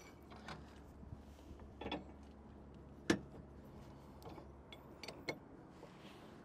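Light metal clicks and clinks of a safety cable's hook being handled and clipped onto a tow bar base plate's loop. The sharpest click comes about three seconds in, with smaller ones near two and five seconds.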